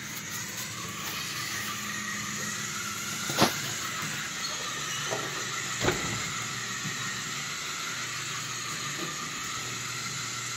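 Toy RC Ford Bronco's small electric motor and gears whirring steadily as it drives along the carpet. A sharp knock comes about three and a half seconds in and another near six seconds.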